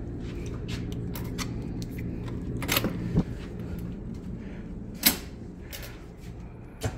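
Hotel room tone: a steady low hum with a few sharp clicks and knocks scattered through it, the loudest near three seconds in and about five seconds in.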